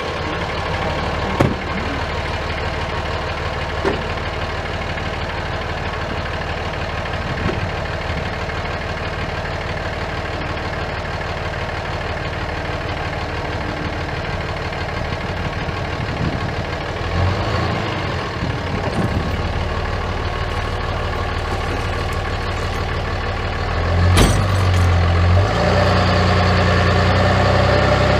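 Dodge Ram 3500 pickup's engine idling, its note changing briefly a little after halfway. A sharp knock comes about 24 seconds in, then the engine is louder and fuller as the truck moves off to take up the tow chain.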